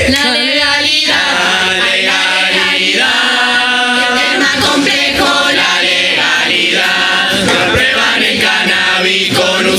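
A murga chorus of many voices singing together.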